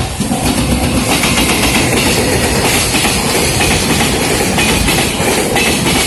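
JR Freight EF210 electric locomotive and its fully loaded container wagons passing close at speed: a loud, steady noise of wheels on rail with clattering over the rail joints. A level-crossing warning bell rings faintly behind it.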